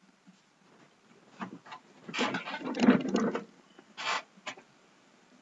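Clicks and a rustling clatter from a computer mouse and keyboard in use, loudest from about two to three and a half seconds in, with two more short clicks near the end.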